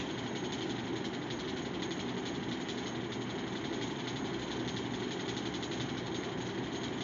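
Steady mechanical hum, like a small motor running, even throughout with no breaks.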